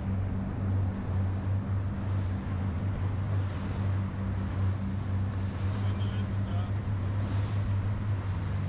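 Steady low engine drone under gusting wind on the microphone and the wash of open water.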